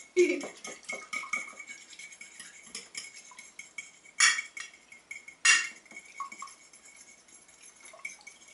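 Fork whisking beaten eggs, water and hot sauce in a baking dish: rapid small clinks of the tines against the dish, with two louder knocks about four and five and a half seconds in.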